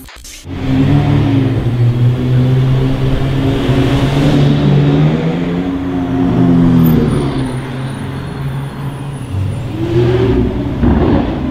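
A red McLaren's twin-turbo V8 pulling away at low revs, its note wavering and rising slightly before fading. A second car's engine revs up near the end.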